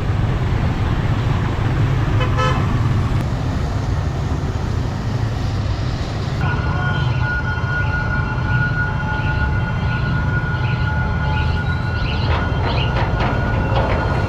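Steady road-traffic and wind rumble at a level crossing, with a short vehicle horn toot about two seconds in. From about six seconds a steady high-pitched tone starts, with short repeated beeps over it.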